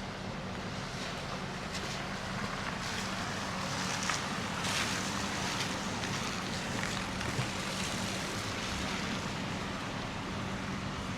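A vehicle engine runs with a steady low hum over a hiss of street noise, with a few short noisy strokes about two to seven seconds in.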